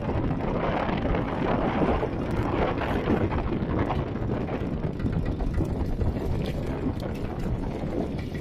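Mini tractor's engine running steadily.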